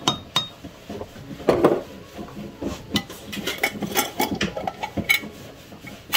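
Irregular clatter and clinks of dishes and cutlery being washed and handled, with a louder clatter about a second and a half in. A small glass spice jar is set down on the counter.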